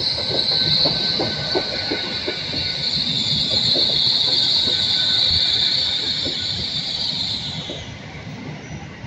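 GWR Class 802 Hitachi bi-mode intercity train drawing slowly into the platform, with a steady high-pitched squeal from its wheels and brakes as it slows and a patter of wheel clicks over the rail joints. The squeal dies away about eight seconds in.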